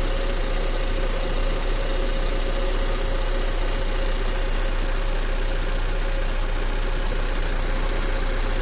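Honda Civic 1.7 four-cylinder engine idling steadily shortly after a fully cold first start, with a steady whine running over the idle: the unexplained strange noise heard on cold starts.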